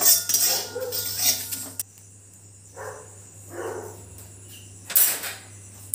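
Steel spatula scraping and stirring whole spices dry-roasting in a dry metal kadai. The scraping is steady for almost two seconds, then it goes quieter, with one more short scrape about five seconds in.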